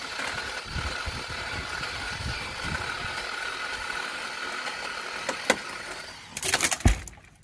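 Chainsaw running steadily as it cuts through a tree limb. About six and a half seconds in there is a quick series of sharp cracks and a heavy thud as the limb breaks off and lands, and the saw then falls quiet.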